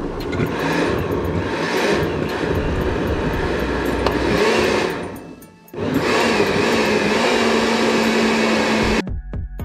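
Hamilton Beach countertop blender running, pureeing a cooked pineapple-mango sauce. It runs for about five seconds, stops briefly, runs again for about three seconds, and cuts off sharply near the end.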